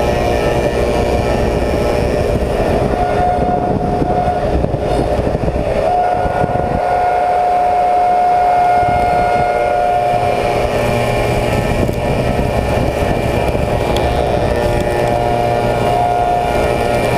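Slab surfacing machine's cutter head, fitted with six insert knives, running steadily as it mills a willow slab: a loud, constant drone with a steady whine that grows stronger for a few seconds midway.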